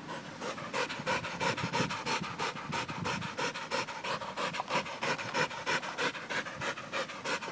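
American pit bull terrier panting rapidly right at the microphone, about four to five breaths a second, hot from ball play.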